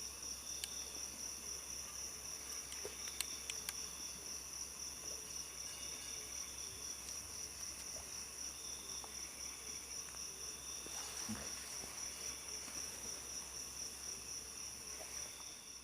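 Night-time insect chorus of crickets: a steady, high-pitched pulsing trill, with a few faint clicks about three seconds in.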